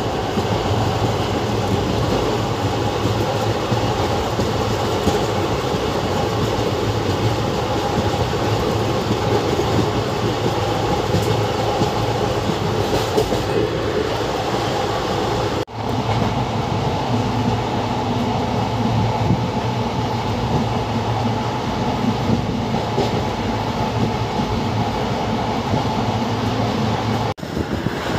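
Passenger train running at speed, heard from aboard: a steady running noise of the wheels on the rails with a low hum underneath. It breaks off sharply about halfway through and again near the end.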